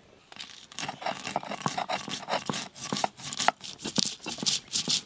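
Mustard seeds and green chillies being crushed on a flat stone slab with a hand-held grinding stone (shil-nora): stone scraping on stone, with the seeds cracking in quick irregular clicks. It starts a moment in.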